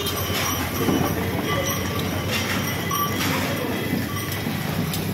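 Dosas sizzling on a hot flat iron griddle, with a metal spatula scraping and knocking against the griddle in scattered short clicks over a steady hiss.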